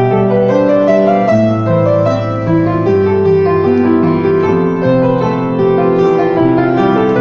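Piano music: a melody over chords, with notes changing at a steady, moderate pace.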